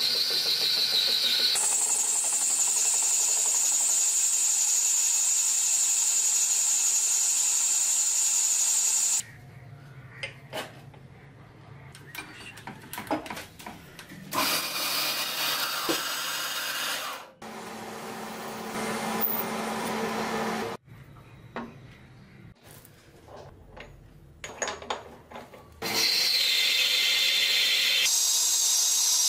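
Metal lathe turning a metal workpiece, the cutting tool giving a steady high-pitched whine. About nine seconds in it drops to a quieter stretch of scattered clicks, knocks and short hissing passages as parts are handled and test-fitted, and the loud cutting sound returns near the end.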